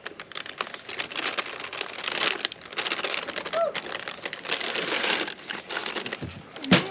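Plastic liner bag inside a box of baking mix crinkling as the mix is poured from it into a measuring cup and the bag is handled, with a sharp knock just before the end.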